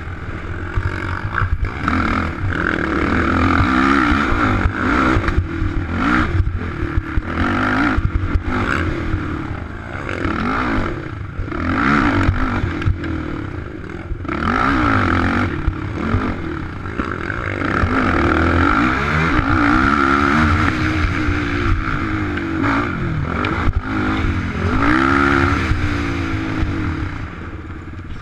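Sport ATV engine heard from on board, revving up and down again and again under the throttle, with knocks and rattles as the quad bounces over rough dirt trail.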